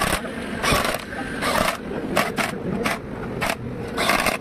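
Impact wrench driving a long extension socket on bolts inside a ZF gearbox housing, fired in about eight short bursts at uneven intervals.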